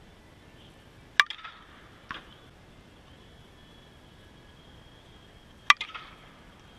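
Two crisp cracks of a softball hit by a Louisville Slugger Super Z Balanced composite slowpitch softball bat, each ringing briefly, about four and a half seconds apart. A fainter knock follows soon after each hit.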